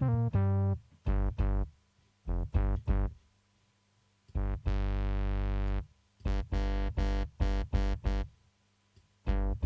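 Ableton Live's Max for Live Bass synthesizer playing its thick default preset: short bass notes in pairs and small groups, with one longer held note about halfway through. The later notes sound brighter as the filter cutoff is opened.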